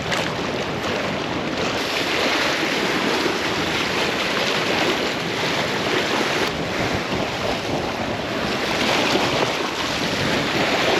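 Sea waves washing against shoreline rocks, mixed with wind on the microphone; the wash swells louder a couple of times.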